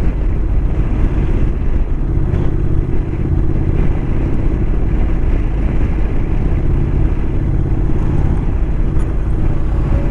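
Motorcycle engine running steadily while riding along at a constant speed, under a steady rumble of wind and road noise.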